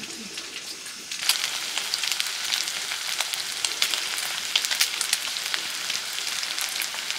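Food frying in a pan, sizzling with many small crackles and pops. The sizzle starts suddenly and loud about a second in.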